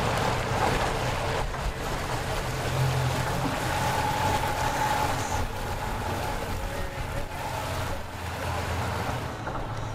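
Yamaha outboard motor on a small aluminium jon boat running at low speed as the boat passes, a steady low drone.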